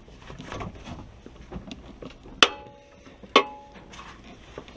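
Crescent wrench clinking on the metal of a truck's front-axle four-wheel-drive actuator as it is fitted and turned. There are two sharp metallic clinks about a second apart, each ringing briefly, among faint scraping.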